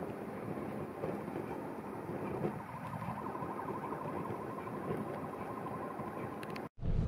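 Charcoal fire burning in a portable barbecue grill: a steady rush of flames with small scattered crackles. A faint steady tone with a fast flutter runs through the middle, and near the end the sound cuts out for an instant and returns louder and deeper.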